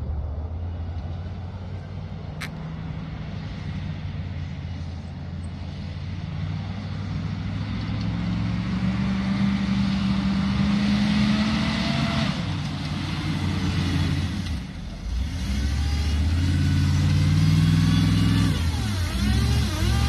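Military Humvee's V8 diesel engine running as the truck drives off-road over grass. It grows louder as the truck comes closer, rises in pitch under acceleration, eases off briefly about fifteen seconds in, then revs up and down as the truck turns.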